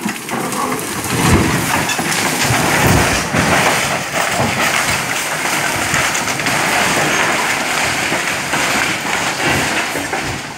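A lowbed truck carrying a tracked excavator rolling off the road and crashing down a brush-covered slope: a long, loud crash of metal and breaking brush, with heavy thuds in the first few seconds.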